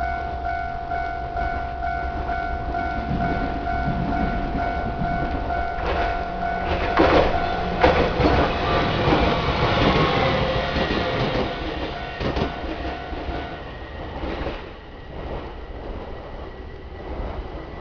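A Japanese level crossing's warning bell rings in a quick, even rhythm while a JR Kyushu train passes, its wheels clattering and knocking over the rail joints. The bell stops about two-thirds of the way through, and the train noise then fades.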